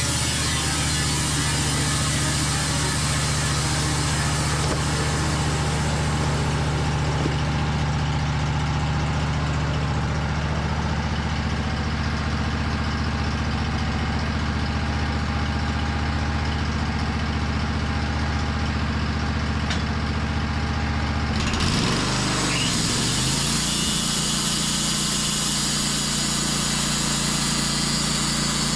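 Portable sawmill running steadily under its engine, as on a pass through a black walnut log. About three quarters of the way through, the engine note glides to a new pitch and the sound changes.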